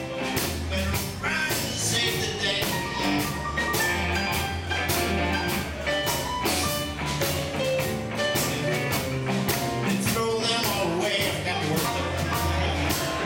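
Live band music: electric guitar and a Yamaha electronic keyboard playing over a steady beat.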